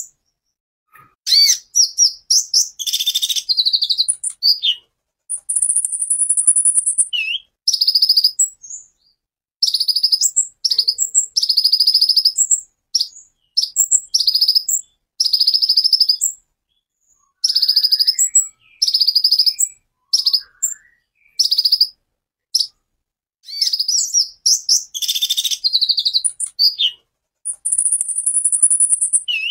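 Male kolibri ninja sunbird singing: bursts of rapid, high-pitched chirps and sharp 'tembakan' notes separated by short pauses. The song includes two long, thin, very high trills, one about six seconds in and one near the end.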